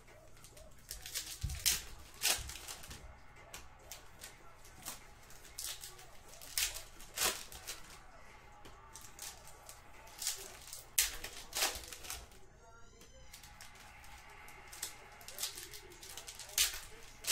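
Trading card packs being torn open and the cards handled: irregular sharp clicks, snaps and crinkles of foil wrappers and card stock.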